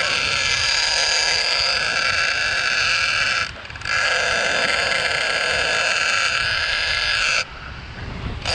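Large conventional shark reel's clicker buzzing steadily as the spool turns, breaking off for a moment a few seconds in, then resuming and cutting off near the end.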